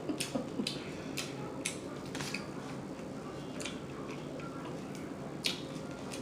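Chewing with open-mouth lip smacking: irregular wet clicks every half second to second, with a louder smack near the end.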